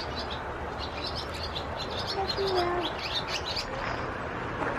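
Small birds chirping, many quick high chirps repeating, over a steady background hiss.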